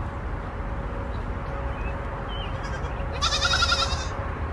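A goat bleats once about three seconds in, a quavering call lasting about a second.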